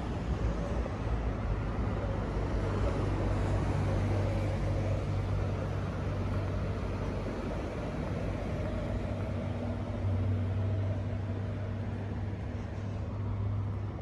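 Alstom C-series electric railcar standing at the platform, its onboard equipment giving a steady low electrical hum. A second, higher steady tone joins in about nine seconds in.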